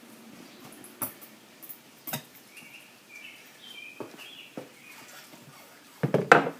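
Lawn mower tire being pried off its metal rim with a screwdriver: sharp clicks of the screwdriver on the rim, a run of short high squeaks from the rubber bead in the middle, and a louder clatter near the end.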